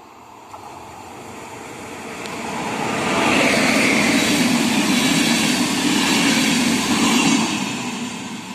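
Passenger train of ÖBB coaches running through a station without stopping: the rumble of wheels on rail and the rush of the passing train build over the first three seconds, hold steady while the coaches go by, and start to fade near the end.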